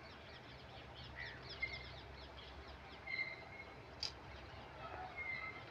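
Birds chirping: a rapid run of short, high, falling notes over the first few seconds, and a few brief whistled notes, over a faint steady low rumble from the departing passenger train. A short sharp click comes about four seconds in.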